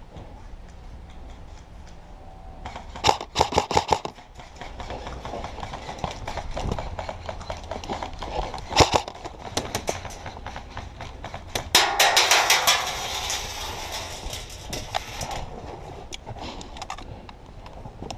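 Airsoft guns firing in bursts of rapid shots: a burst about three seconds in, a few shots around nine seconds, and a longer, louder stretch of rapid fire from about twelve to fifteen seconds.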